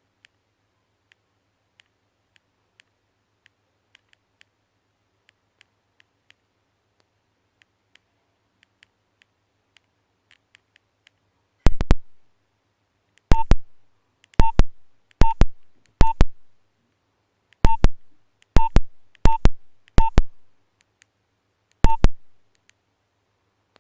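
Nokia 1112 key beeps taken straight from the phone's earphone output: about ten short, sharp beeps at uneven intervals, as keys are pressed. Before them, about ten seconds of faint ticking and a low hum, noise from the recording hardware.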